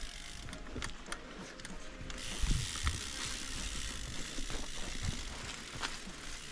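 Mountain bike's rear freehub ticking as the bike coasts, with scattered clicks and knocks from the bike on the dirt trail. About two seconds in, the tyre and trail noise rises to a steady rush.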